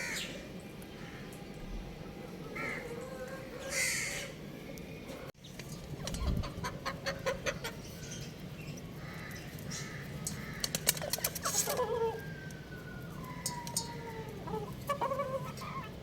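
Young rooster and chickens clucking and giving short calls, some of them gliding in pitch, with two runs of rapid clicking and tapping.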